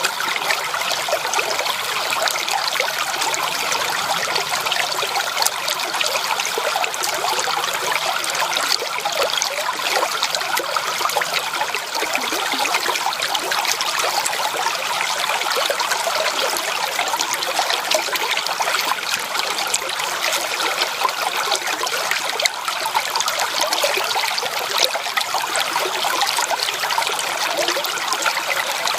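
Shallow creek water trickling and babbling over stones, a steady close-up bubbling flow with no pauses.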